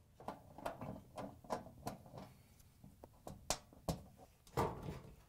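Small metallic clicks and ticks of a nut driver turning out the 1/4-inch screws of a dryer's sheet-metal access panel, with a few louder knocks in the second half.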